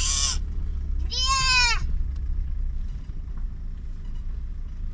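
A car engine idling, heard as a low hum from inside the cabin. Over it come two short high-pitched calls, each rising then falling in pitch: one at the very start and another about a second later.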